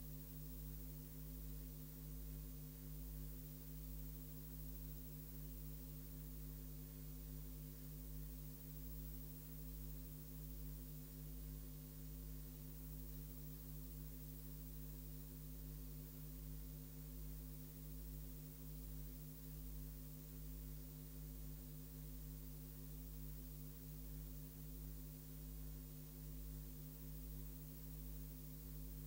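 Steady electrical hum with a faint hiss, unchanging throughout: a low drone with several steady overtones and no other sound.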